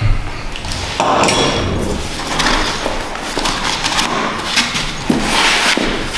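Lighting gear being handled in a padded carry case while a reflector is lifted out: irregular knocks, clatter and rustling.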